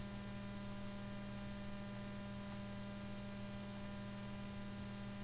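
Steady electrical mains hum with a buzz of many higher tones above it and a faint even hiss, unchanging throughout.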